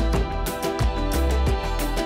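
Background music with a steady beat over held instrumental tones.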